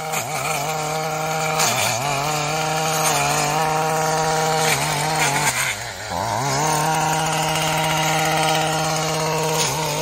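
Small petrol engine of a grass-cutting machine running steadily at high speed, its pitch dipping briefly about two seconds in and again about six seconds in before picking back up.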